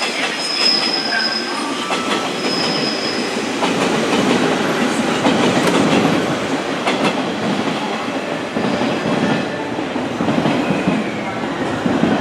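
Electric train running through the platform, wheels clacking over the rail joints. A thin, high wheel squeal is heard during the first few seconds.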